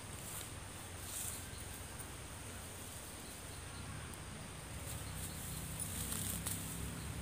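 Open-field ambience: a steady high insect drone with a low hum underneath that grows a little stronger in the last couple of seconds.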